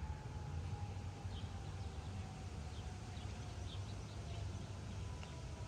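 Distant fire engine siren, a single thin wail slowly falling in pitch, with a second tone joining near the end, over a steady low rumble.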